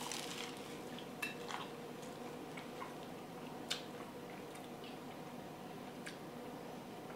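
Faint chewing and mouth noises from a person eating a bite of a slider burger, with a few soft clicks over a steady low room hum.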